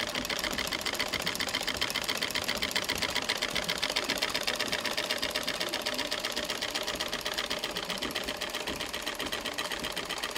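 Treadle-driven Singer sewing machine running at a steady speed, its needle and mechanism clattering in a rapid, even stitching rhythm.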